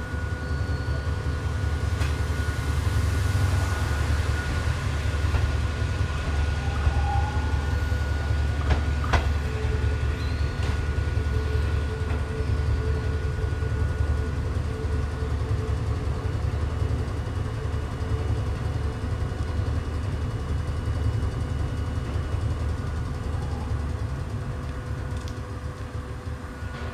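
Hakone Tozan Railway 'Allegra' electric train pulling away: a steady low rumble of motors and wheels with a constant whine. There is one sharp click about nine seconds in, and the rumble fades near the end as the train moves off.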